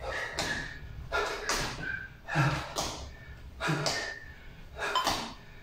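Sneakers landing on a hard tiled floor during repeated 180-degree jump turns: a string of thuds, roughly one or two a second.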